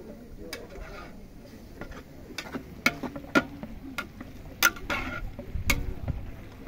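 Kitchen utensils clinking and knocking irregularly against cookware during food preparation, a few sharp clicks a second.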